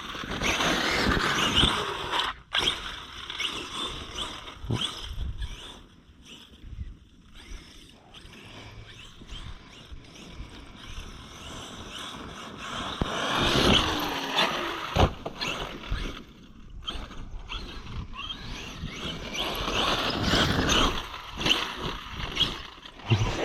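Arrma Outkast 8S RC truck's brushless motor whining up and down in bursts of throttle as its tyres churn through soft dirt. There are louder runs at the start, around the middle and near the end, with quieter stretches between.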